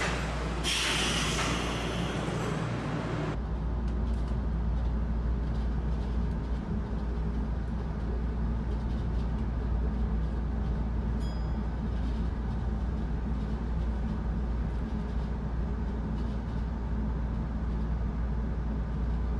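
Chiba Urban Monorail suspended car: a hiss of air for about two and a half seconds near the start, then the steady low hum and rumble of the car running along its overhead track, heard from inside.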